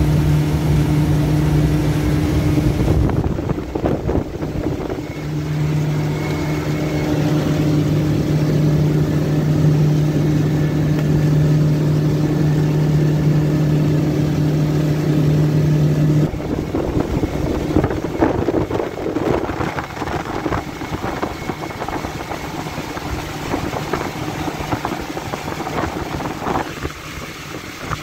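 Motorboat engine running at a steady pitch, with water and wind rushing past the hull, heard from inside the boat's cabin. A little past halfway the steady engine note drops away and the sound turns quieter, rougher and more uneven, with frequent short slaps.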